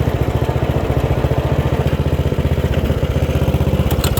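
Bolens rear-engine riding lawnmower's engine running steadily at idle with an even, rapid firing beat as the mower moves in reverse. A few light clicks come near the end.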